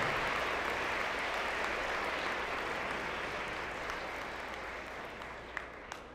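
Audience applauding, dying away gradually, with two sharper clicks near the end.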